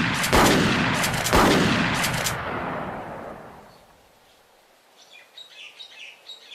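A volley of loud gunfire-like blasts about a second apart, each trailing off in a long rumble that fades out after about three and a half seconds. Small birds chirp faintly near the end.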